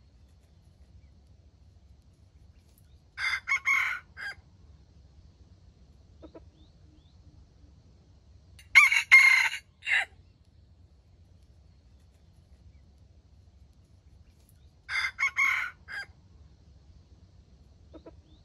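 Wild junglefowl rooster crowing three times, about six seconds apart; each crow lasts about a second and ends in a short clipped final note. This is the crow used to lure wild birds to a trap.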